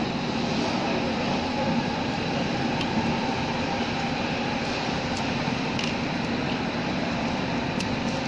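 Steady drone of background machinery with a faint hum, and a few light clicks of small metal pump parts and a screwdriver being handled.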